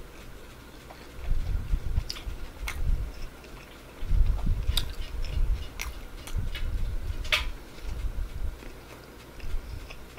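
A person chewing a mouthful of Big Mac close to the microphone, with irregular low mouth sounds and scattered sharp clicks.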